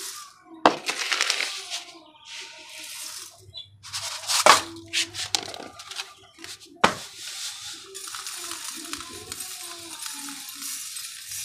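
Grain poured into a metal hopper-type pigeon feeder, a hiss of seed running in several spells, broken by three sharp metallic clinks as the feeder and steel tray knock together.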